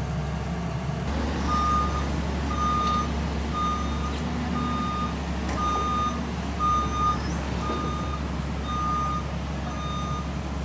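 JCB tracked excavator's diesel engine running steadily as the machine travels on its tracks. Its travel warning alarm gives a single-pitched beep roughly once a second, starting about a second and a half in.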